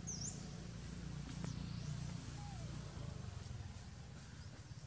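Outdoor ambience: a steady low rumble with a few brief, high chirps from birds, one right at the start and a fainter one about a second and a half in.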